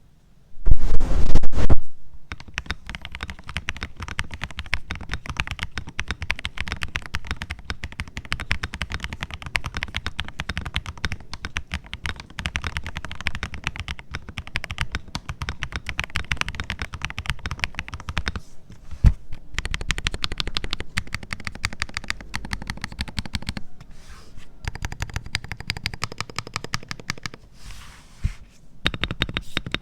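Redragon TERRAFLARE K762 PRO mechanical keyboard being typed on in quick, even keystrokes, with a few short pauses. A loud burst comes about a second in, before the typing settles in.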